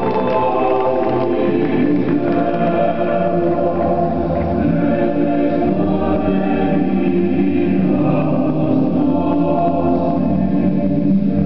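A choir singing slow, sustained chords.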